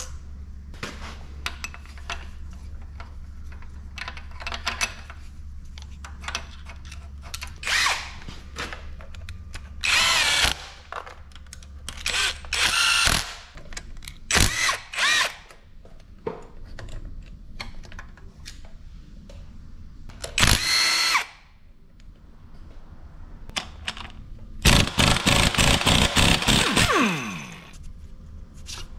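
Several short runs of a cordless power tool spinning out the timing-belt tensioner and guide bolts, with clinks of hand tools and metal parts between them. The longest run comes near the end, a fast rhythmic hammering whose pitch falls away as it stops.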